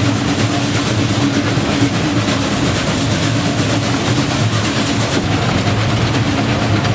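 Narrow-gauge steam locomotive under way, heard from aboard the engine: a steady, loud mix of rapid exhaust beats and running-gear clatter.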